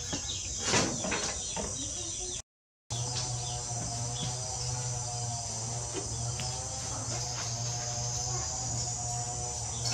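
Steady high-pitched chirring of insects, with a few light knocks in the first second or so. After a brief dropout, a steady low hum runs under the chirring.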